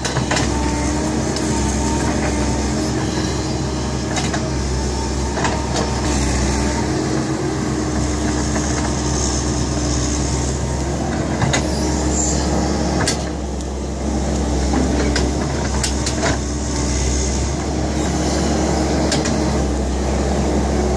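Kobelco hydraulic excavator's diesel engine running steadily under load, with several sharp knocks as it works.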